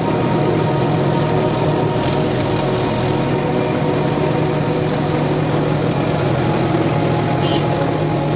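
Sugarcane juice crusher machine running, its motor giving a loud, steady hum.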